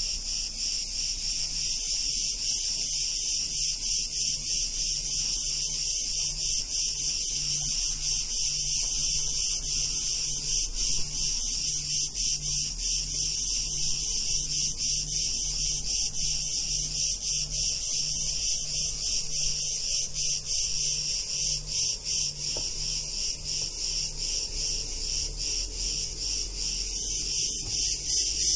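Cicadas buzzing in a steady, dense chorus: a high, rapidly pulsing drone that keeps up without a break.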